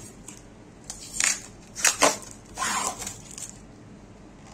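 Plastic lid being pried off a round plastic takeaway food container: several crackling bursts of plastic, the sharpest about two seconds in.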